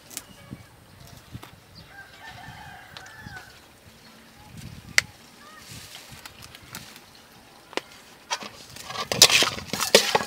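A rooster crowing once, about two seconds in, one drawn-out call. A few sharp clicks follow, then louder clattering near the end.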